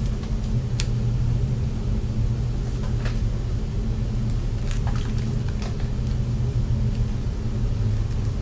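Steady low hum with a few faint clicks and taps as a flat iron is handled and drawn through hair.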